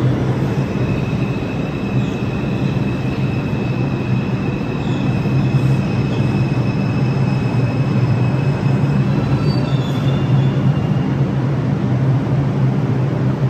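New York City subway train running past on the express tracks: a steady, loud rumble of wheels on rail, with a thin high-pitched wheel squeal held over it that fades out near the end.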